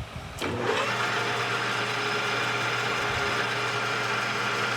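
Metal lathe starting up about half a second in and running steadily with a constant hum, turning a part's diameter down to size.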